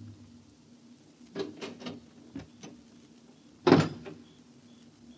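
Radio-drama sound effect of a car door: a few latch and handle clicks, then the door slammed shut about three and a half seconds in, with a faint steady hum underneath. Faint cricket chirps start near the end.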